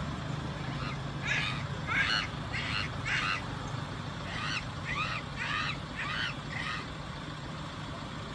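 A series of short animal calls, each arching up and down in pitch, about two a second in two runs: one starting about a second in, the other about four seconds in. A steady low hum runs underneath.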